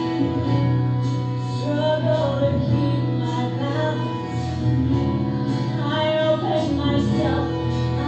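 A woman singing a musical-theatre ballad with live instrumental accompaniment, holding long notes with vibrato.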